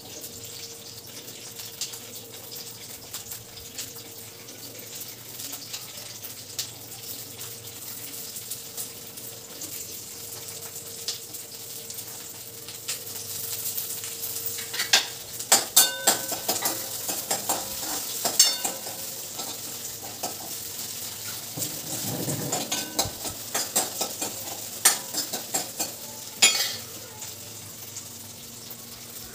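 Green chillies frying in a metal kadai, sizzling, while a spoon stirs them and clinks against the pan. The sizzle grows louder about halfway through, and from then on the spoon strikes come as sharp clicks.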